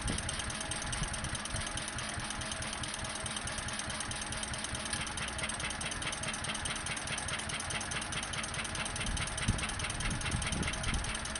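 Fowler 1PA stationary engine running steadily as it is set up on its first runs, with a regular clatter about four times a second coming in about halfway through.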